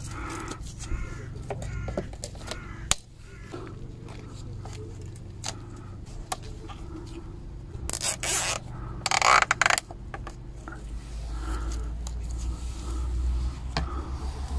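Plastic cable tie ratcheting as it is pulled tight through the slots of a car's plastic hubcap, in two quick zipping pulls about eight and nine seconds in, among small clicks of handling. A sharp snip near the end as the tail is cut with side cutters, while a low rumble builds.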